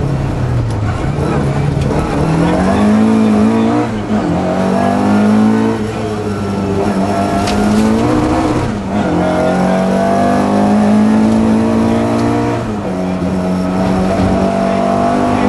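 Historic Ford rally car's engine heard from inside the cabin, pulling hard at high revs. Its pitch climbs and then holds, and the revs dip briefly about four, nine and thirteen seconds in.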